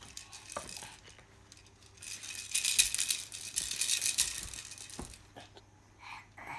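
A toy rattle shaken in quick bursts, starting about two seconds in and running for a couple of seconds, with a shorter shake near the end. A couple of faint knocks come before it.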